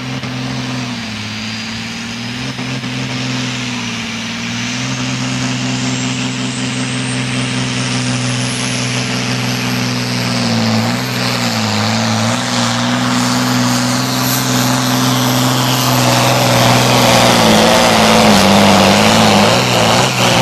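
Turbocharged diesel engine of a Super Sport class pulling tractor running under full load as it drags the brake sled down the track. The note is steady and grows louder, and its pitch dips briefly about halfway and again near the end, over a high whistle that slowly climbs in pitch.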